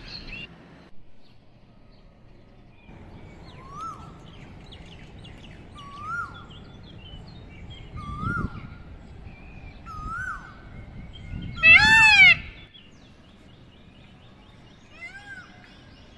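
Birds calling in a morning chorus: a short call that rises and falls in pitch comes about every two seconds. About twelve seconds in, one much louder, rich arching call stands out.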